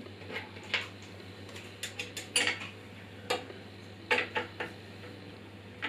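Light metallic clicks and clinks from handling the metal parts of a benchtop bandsaw while fitting its table: a dozen or so short, separate knocks, some in quick clusters, as the table and its locking knob and screws are worked into place.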